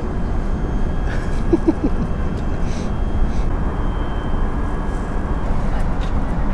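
Steady low roar of a jet airliner's cabin in flight, with a few faint clicks.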